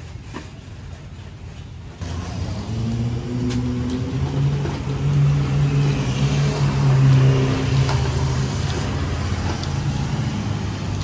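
A road vehicle's engine running close by in street traffic. It comes in about two seconds in, rises a little in pitch, then holds steady before easing off near the end.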